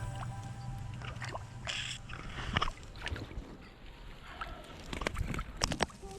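Water sloshing and splashing around a cast-net fisherman, with scattered knocks and clicks. A low hum stops about two and a half seconds in.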